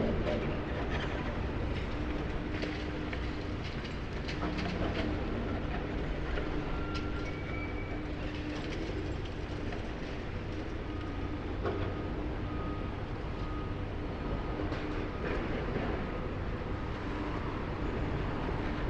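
Demolition excavator's engine and hydraulics running steadily with a constant hum, while scattered knocks and crackles come from the rig working at a wall.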